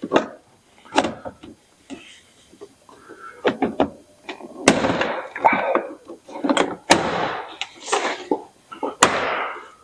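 Plastic retaining clips of a Jeep Grand Cherokee's door trim panel popping loose as the panel is pried off with a trim tool: several sharp cracks, each followed by a scrape and rattle of the panel. It sounds like the panel is going to break.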